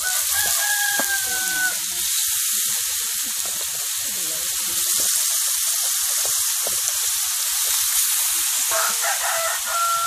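Spice paste and pieces of grilled python sizzling in a wok as the meat is tipped in, a steady frying hiss. A rooster crows twice, once just after the start and again near the end.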